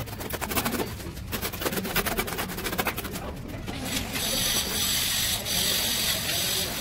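Mason's trowel scraping and smoothing wet sand-cement mortar on a wall: a quick run of rough scrapes at first, settling into a steadier, hissing scrape about four seconds in.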